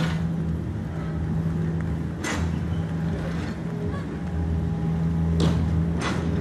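Hino dump truck's diesel engine running with a steady low drone as the truck manoeuvres, with a few short hisses about two seconds in and again near the end.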